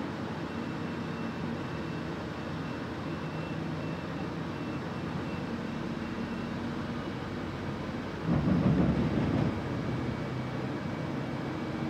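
Steady engine and road hum heard inside a Solaris Urbino 18 articulated city bus on the move. About eight seconds in, a louder rumble lasts a second or so, then settles back.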